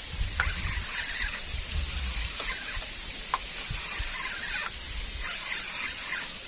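Scattered short, chirping animal calls, each sliding down in pitch, with a few sharp clicks and a low rumble that fades about five seconds in.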